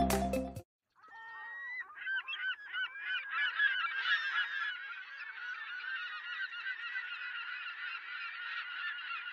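A short electronic jingle ends in the first half-second, then a large flock of birds calling, many short calls overlapping, building up over the first few seconds and carrying on steadily.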